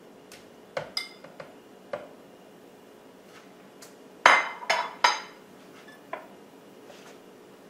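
Glass kitchenware clinking and knocking as small glass prep bowls are handled against a blender jar and countertop. There are a few light knocks in the first two seconds, a cluster of louder clinks with a short ring about four to five seconds in, and one more knock about six seconds in.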